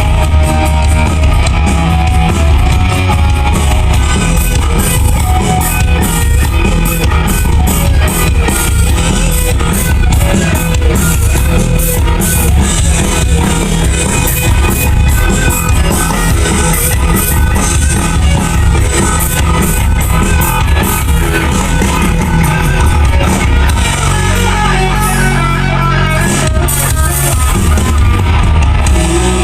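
Rock band playing live and loud: electric guitar, bass and drum kit in a continuous passage.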